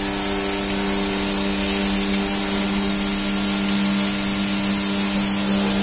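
Pressurized water jet spraying onto corrugated metal roof sheets with a steady hiss, over the steady hum of a motor.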